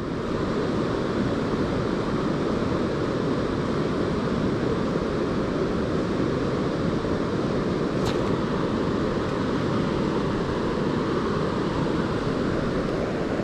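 Steady rush of flowing river water around a wading angler, even in level throughout.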